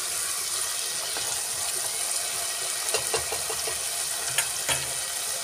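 Tomato-and-spice masala sizzling steadily in oil in a non-stick pan, fried to the stage where the oil separates, while a spatula stirs it. A few short knocks of the spatula against the pan come about three to five seconds in.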